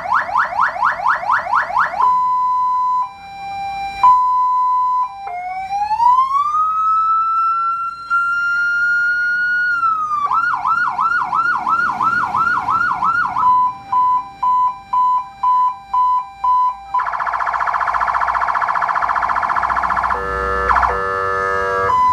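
Electronic police car siren stepping through its tone patterns: a fast yelp, a steady tone and two-tone beeps, then a slow wail that rises and falls back. After that come a slower yelp, a pulsing hi-lo, a harsh buzzing tone, and a horn-like blast near the end.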